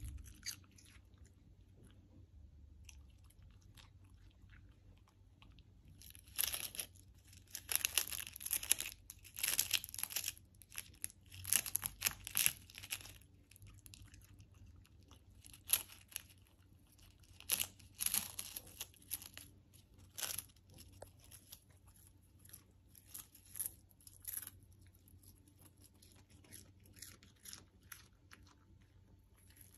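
A miniature schnauzer crunching and chewing crispy dehydrated kale, in bursts of sharp crackly crunches with pauses between. The crunching starts about six seconds in after a quiet spell, is densest in the first half and thins out near the end.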